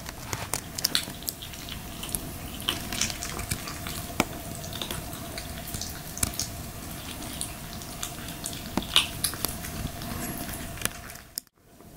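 Three young kittens eating from ceramic bowls: irregular small clicks, smacks and chewing sounds as they lap and bite at their food.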